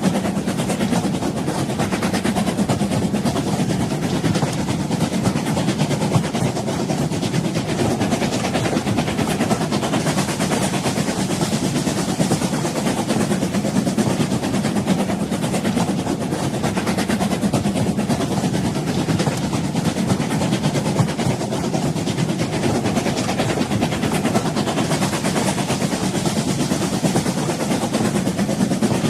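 A train running along the track, a steady rumble with a dense rattle of small clicks and no breaks.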